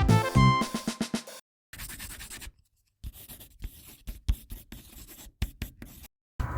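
Background music plays its last notes and fades out. Then come short, faint stretches of scratching and light clicks, like a pencil or hand scraping across a surface, cut apart by abrupt silences.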